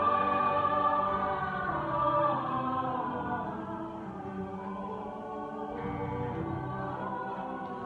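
A choir singing long held chords, loudest in the first two seconds and then softer.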